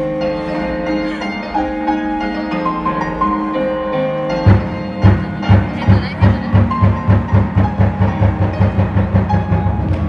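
Vietnamese folk-style dance music: held melodic notes, then about four and a half seconds in a steady drum beat comes in at roughly four strokes a second.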